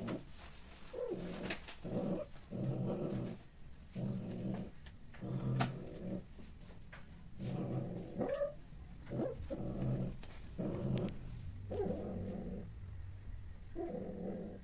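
Domestic cat growling low in repeated half-second pulses, about one a second, with a couple of brief higher cries, during mating.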